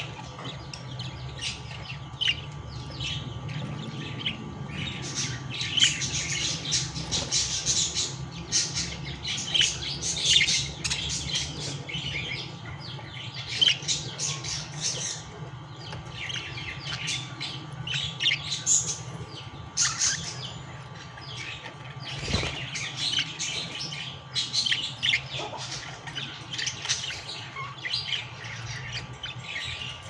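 Budgies chirping and chattering: many short, quick chirps and squawks overlapping, over a low steady hum.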